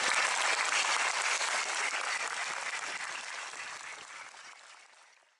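Audience applauding steadily, fading away to nothing near the end.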